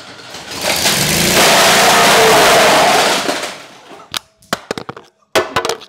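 Kohler 21 hp horizontal-shaft engine of a Cub Cadet GT2544 catching and running loudly for about three seconds as a harsh rushing noise, then dying away. A run of sharp cracks and clattering knocks follows: the drive shaft coupling has blown apart and the flailing drive shaft is smashing the plastic at the rear of the mower.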